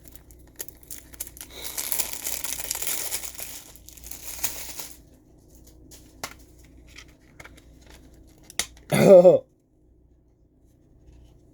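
Plastic wrapping being torn and crinkled off a CD case for a few seconds, followed by scattered clicks and taps of the case being handled. About nine seconds in there is a brief, loud vocal sound.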